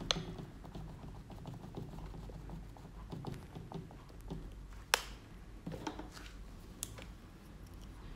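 Sponge dabbing acrylic paint onto a stretched canvas: faint, irregular soft pats, with a few sharp clicks, the loudest about five seconds in.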